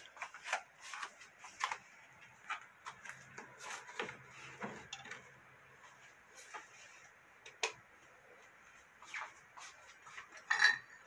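Scattered light clicks and knocks of a ceramic plate and utensils being handled and set down, with one sharp, ringing clink near the end.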